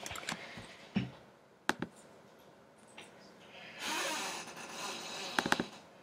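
Scattered clicks of a computer keyboard and mouse during code editing, ending in a quick run of clicks. A soft breathy rush of noise comes between them in the middle.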